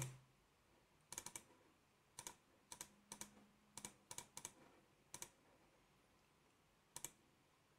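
Faint, irregular clicks of a computer mouse, many coming as quick press-and-release pairs, with a last click about seven seconds in.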